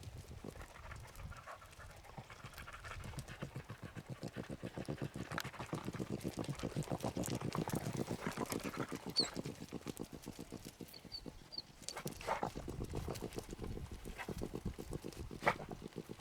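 A pack of beagles giving voice on a rabbit's track, heard faint and at a distance.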